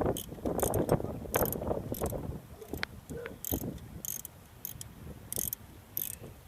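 Ratchet wrench clicking in a series of short strokes with pauses between them as the alternator's last mounting bolt is tightened, over wind rumble on the microphone.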